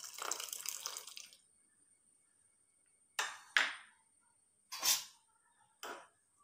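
Tamarind water poured from a glass into a pan of curry, splashing for about a second and a half. Then a spoon scrapes through the paste and vegetables in the pan in four short strokes.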